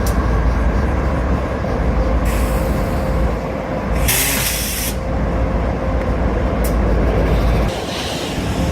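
Train rumbling by at close range, with a steady hum over the low rumble. About four seconds in comes a short, loud hiss of air, and a fainter hiss a little before it.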